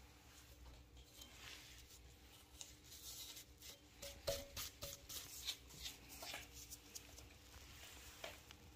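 Gloved hand brushing fine aluminium milling chips off a metal router plate and an aluminium crankcase: faint, irregular rustling and scratching, with a sharper click about four seconds in.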